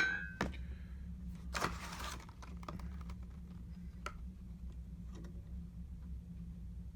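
Light, scattered clicks and small metal clinks as stainless steel camp-kit pieces are handled. There is a short rustle about a second and a half in and a single faint ringing ping about four seconds in, over a steady low hum.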